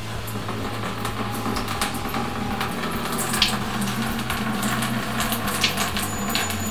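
Wine running from a siphon hose into a fine plastic sieve over a bucket, splashing and trickling, with irregular light clicks of a spoon working in the sieve.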